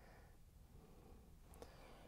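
Near silence: room tone, with a faint click about one and a half seconds in.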